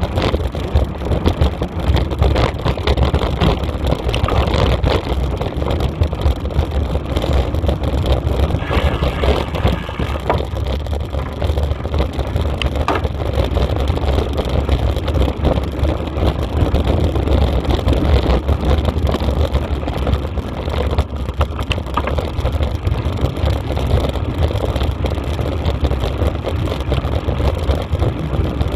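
Loud, steady rumble of wind buffeting a moving camera's microphone, with occasional crunches from the gravel track.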